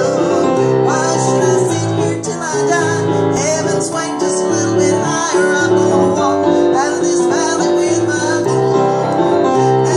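A woman singing while accompanying herself on a digital piano, with steady chords under the voice.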